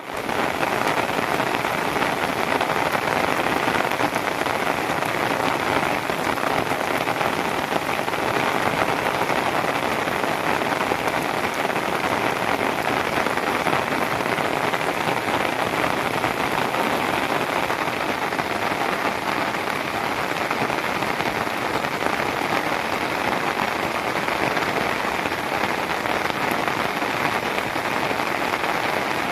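Steady rain falling hard, an even hiss of drops on surfaces.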